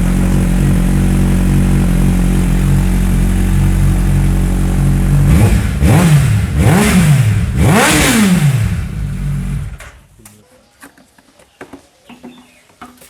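Suzuki Hayabusa's inline-four engine idling steadily, then blipped three times in quick succession, each rev rising and falling back, before the engine is switched off about ten seconds in; a few faint clicks follow.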